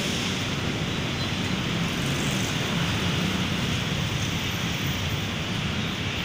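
Steady street traffic noise: car and motorcycle engines and tyres on the road blending into a constant rumble and hiss.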